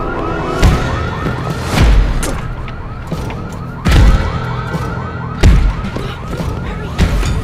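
A fast warbling alarm siren, about four rises a second, with five heavy thuds spaced a second or so apart: a front door being kicked while a floor-mounted door brace holds it shut.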